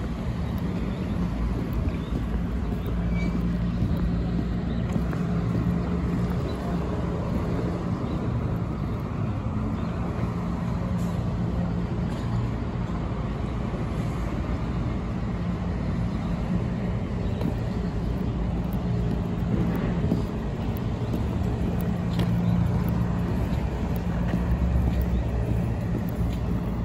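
City street traffic: cars and trucks passing and idling, with a steady low engine hum under an even rumble of road noise.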